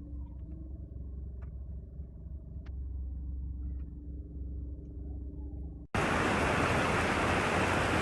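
A steady low rumble with a hum, as of a car engine idling, with a few faint ticks. About six seconds in it cuts abruptly to a loud, even rushing noise.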